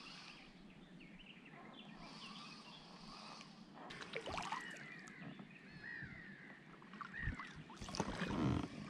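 Quiet pond ambience with faint water sounds around a small boat, a few light knocks, and faint high chirps in the middle.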